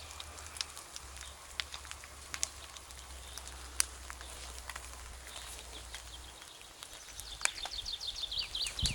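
Campfire crackling with scattered sharp pops, and a small bird singing a quick run of high chirps near the end.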